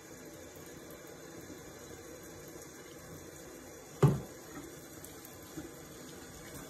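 Kitchen tap running in a thin stream into a stainless steel sink as hands are lathered and rubbed under it, with one sudden thump about four seconds in.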